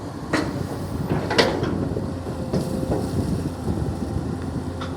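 Long-arm excavator's diesel engine running steadily, with a few sharp knocks and clanks from the machine at work, the loudest about a second and a half in.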